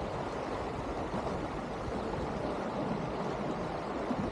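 Steady rush of water along an Elan 310 sailboat's hull and wind, with the boat under sail.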